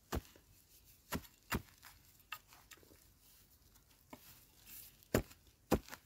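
A metal digging tool striking hard, dry, stony soil in a handful of separate sharp chops, with light scraping and crumbling of earth between them; the two loudest strikes come near the end.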